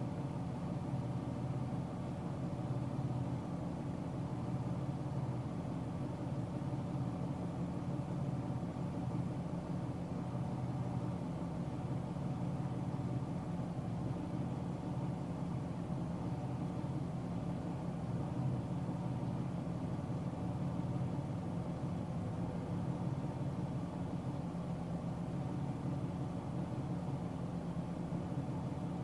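Steady hum of a car driving at highway speed: engine drone and tyre noise on the road, unchanging throughout.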